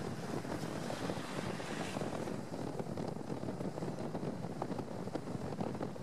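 Steady rushing noise of wind buffeting the microphone, with no clear tone or rhythm.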